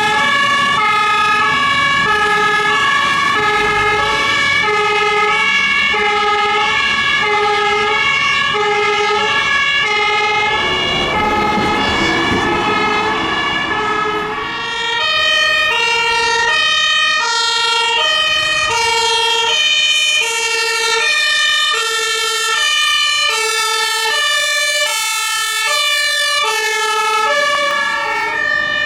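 Two-tone sirens of fire engines sounding, several at once, each alternating between a high and a low note out of step with the others. Around the middle a vehicle passes with a rush of engine and tyre noise, and after that a louder siren at a different pitch takes over.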